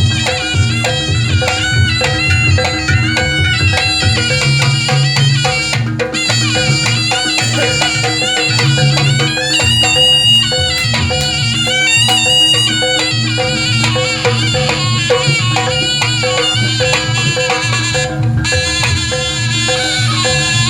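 Loud traditional Javanese barongan music: a reedy wind instrument plays a wavering melody over a steady drone, with constant rhythmic drumming underneath.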